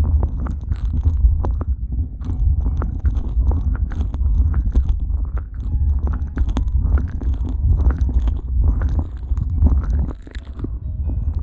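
Vaseline-slick fingers rubbing, covering and cupping in-ear binaural microphones: a constant low rumble with many small sticky clicks and squelches.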